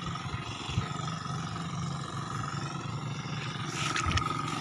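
Small single-cylinder engine of a kuliglig hand tractor running steadily, a low even drone with a faint steady whine above it. A few light clicks come near the end.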